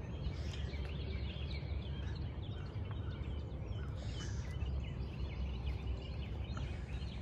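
Small birds chirping with many short, quick calls over a steady low rumble.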